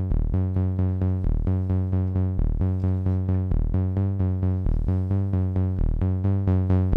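Roman Filippov 208r Buchla Easel clone synthesizer playing a sequenced pattern of short pitched notes, about four a second, with a lower note coming back about once a second. The modulation oscillator is stepped between two pitches by pulses, one sent directly to its pitch and one through the CV mixer.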